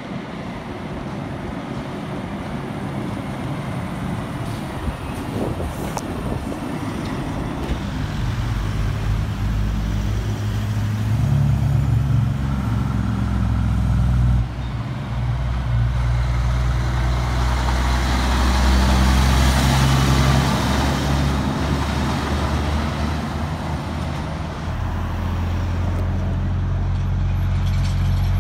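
Heavy diesel trucks (semi-trailer and road-train prime movers) driving slowly past, engines pulling steadily, with tyre and road noise. The sound jumps abruptly about halfway through to another truck, and a truck's engine grows louder near the end as it approaches.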